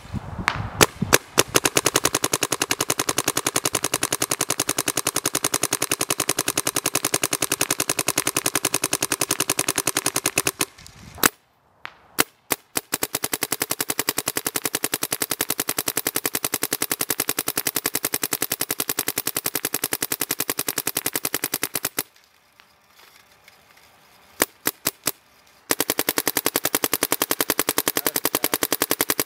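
Dye DM11 electropneumatic paintball marker firing long, rapid strings of shots. There are three strings, split by pauses of a couple of seconds in which only a few single shots sound.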